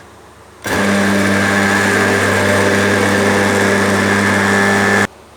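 Electric mixer grinder (mixie) running with a steady motor whine, grinding coriander leaves, fried onion, green chillies and tomato into chutney. It starts under a second in and cuts off suddenly near the end.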